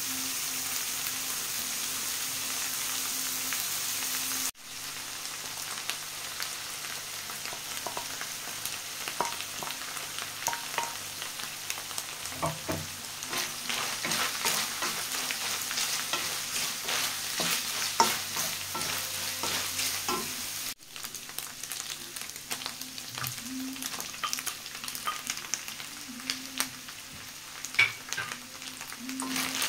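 Ground meat, onion and garlic sizzling in an enamel wok, with a wooden spatula scraping and knocking against the pan as it is stirred. The steady hiss is dotted with short sharp clicks and jumps abruptly twice where the footage is cut.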